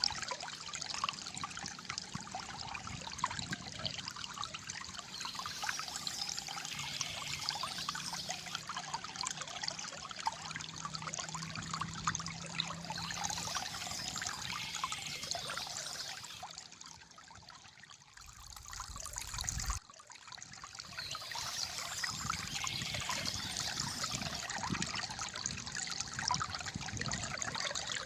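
Shallow water trickling and gurgling steadily. About two-thirds of the way through it briefly drops away, a low rumble swells up and cuts off suddenly, and the trickle comes back.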